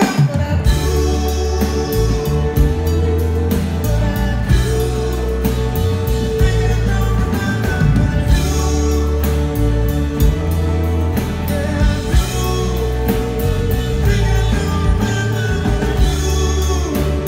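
Live band playing a pop-rock song with a male lead singer, over a heavy bass line and steady drums.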